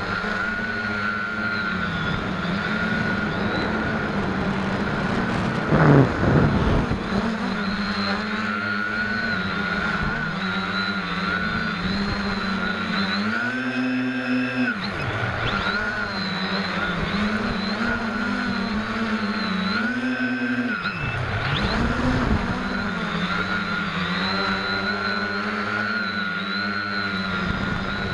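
SK450 quadcopter's brushless motors and propellers buzzing, heard from on board, the pitch wavering with the throttle through flips and rolls. The pitch climbs sharply twice, about halfway through and again about two-thirds through, and there is a brief loud rush about six seconds in.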